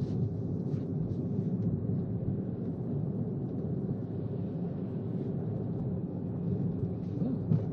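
Steady low road and tyre noise inside an electric Tesla's cabin while it drives slowly.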